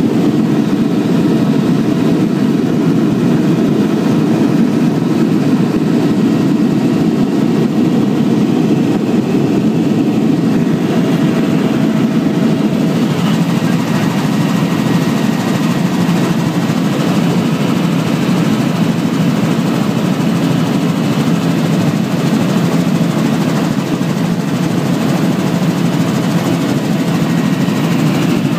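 Helicopter engine and rotor noise heard from inside the cabin, a loud, steady, unbroken drone.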